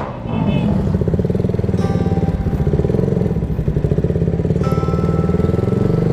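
KTM Duke 200's single-cylinder engine running steadily at low revs as the motorcycle rolls slowly, a rapid even pulsing. Just before it settles there is a brief dip as the revs fall.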